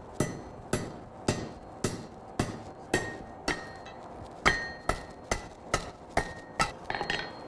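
Blacksmith's hammer striking hot half-inch steel stock on an anvil, about two ringing blows a second, forging a fishtail on the end of a leaf hook. A quick run of lighter taps comes near the end.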